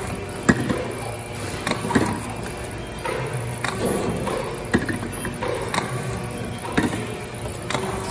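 CTM QLC wrap-around labeling machine running: a steady mechanical whir of the conveyor and wrap belt, with sharp clicks now and then.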